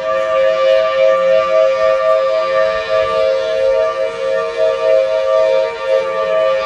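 Outdoor emergency warning siren sounding a loud, sustained two-note chord that pulses slightly in level. Near the end a second, weaker siren tone glides down in pitch.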